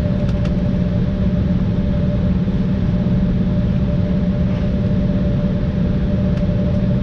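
Inside the cabin of an Embraer ERJ-175 taxiing at low speed, its GE CF34-8E turbofans at idle make a steady low hum. Two held tones run through it, a strong low one and a fainter higher one, over a haze of air noise.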